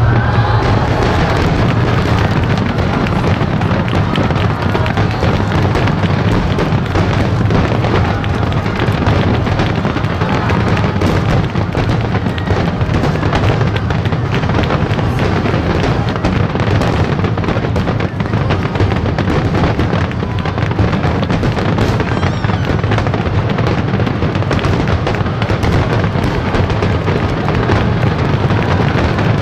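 Starmine fireworks finale: a dense, continuous barrage of aerial shells bursting and crackling with an unbroken low rumble, and music playing underneath.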